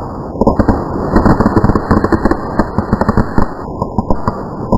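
A string of firecrackers going off in a rapid, irregular run of sharp cracks.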